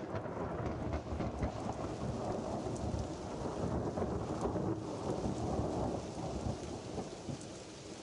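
Steady rain with a low rolling rumble of thunder, easing off a little near the end.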